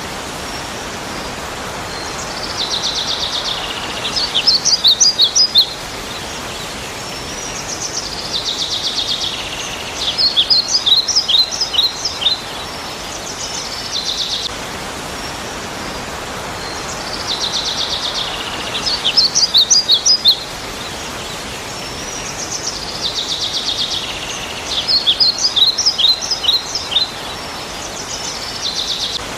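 Bird song repeating about every seven seconds: a buzzy trill, then a quick run of clear rising whistles, over a steady hiss of background noise.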